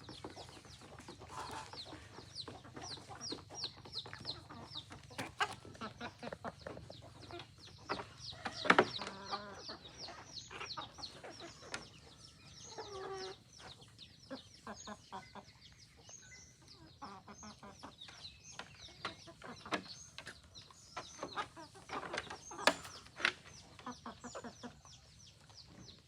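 A flock of free-range chickens clucking, with many quick, high peeping calls throughout. There are two sharp knocks, one about nine seconds in and one near the end.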